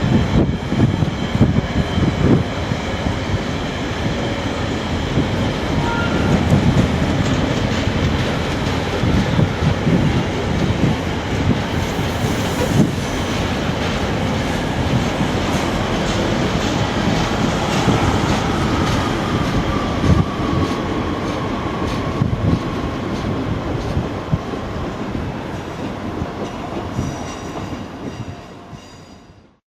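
Freight train wagons rolling past on the rails, wheels clattering in an uneven run of knocks over the track joints. A faint wheel squeal draws out and falls slowly in pitch about two-thirds of the way through. The sound fades out at the end.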